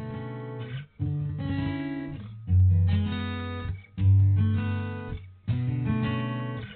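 Background music: acoustic guitar strumming chords, a new chord struck about every second and a half, each ringing and fading.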